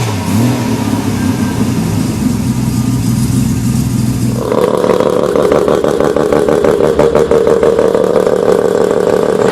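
Rotary engine running at low revs with small rises and falls in pitch. About four and a half seconds in it gives way abruptly to a much higher, steady engine note held at high revs.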